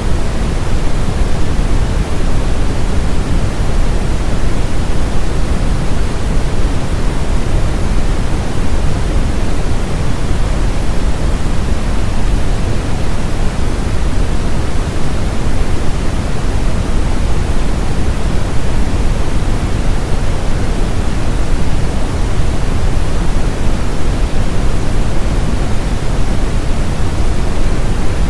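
Steady synthetic brown noise: a constant deep rushing hiss with most of its energy in the low end, unchanging throughout.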